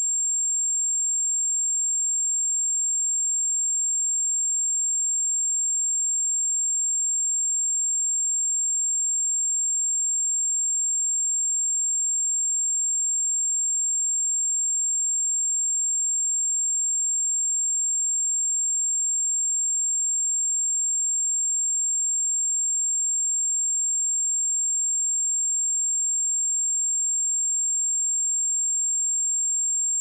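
A pure 7436 Hz sine-wave test tone: a single high-pitched, steady whistle-like tone held unchanging at constant loudness.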